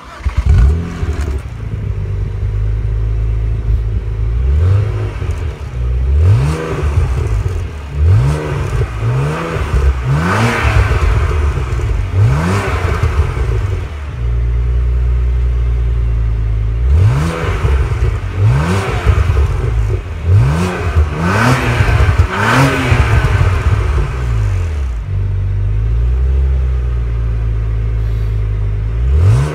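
2016 BMW Z4 sDrive35i's 3.0-litre twin-turbo inline-six, heard at the twin tailpipes, idling and revved in a string of short blips, each rising and falling back. There are two bursts of revs with steady idle between them and after them.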